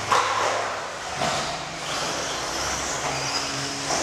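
1/10-scale two-wheel-drive RC buggies racing on an indoor clay track: a steady mix of high-pitched electric motor whine and tyre noise, with a sharp knock right at the start.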